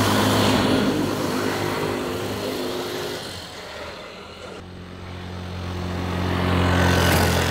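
Motor vehicles passing on a road. One is loudest just after the start and fades away, and another approaches and passes about seven seconds in.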